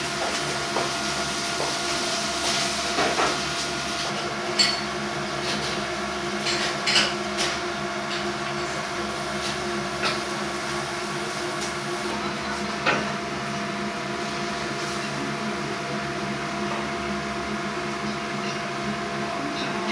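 Restaurant kitchen sound: a steady hum holding several fixed tones, with occasional clinks and clatters of dishes and utensils, several in the first eight seconds and one more about thirteen seconds in.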